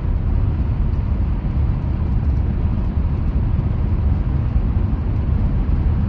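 Steady low rumble of a car's engine, tyres and wind heard from inside the cabin while driving through a motorway tunnel.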